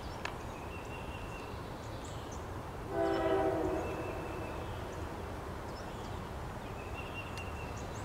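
Distant CSX diesel locomotive horn sounding one short blast about three seconds in, over a steady low rumble.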